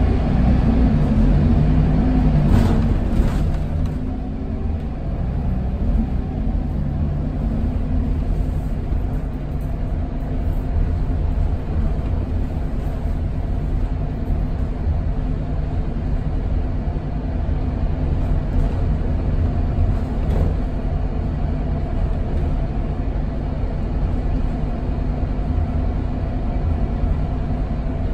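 Inside a Scania K280UB city bus: its 9.3-litre five-cylinder Scania DC9 diesel running with a steady low rumble, somewhat louder for the first few seconds.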